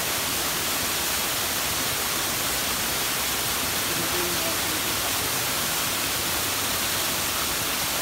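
A small waterfall pouring into a rock pool: a steady, even rush of falling water.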